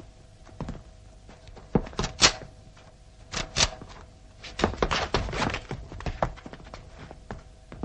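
Soldiers' boots stepping and thudding on a floor in irregular, heavy footfalls. Two loud strikes come about two seconds in, and a dense run of steps comes around five seconds, over a faint steady hum.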